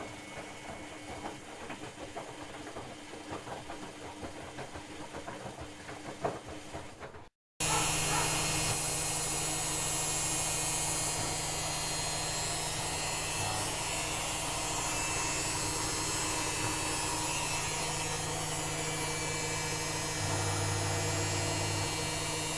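LG front-loading washing machine: first its drum turning with irregular knocks and clicks, then, after a short break about seven seconds in, the steady, louder hum of the final spin at about 800 rpm.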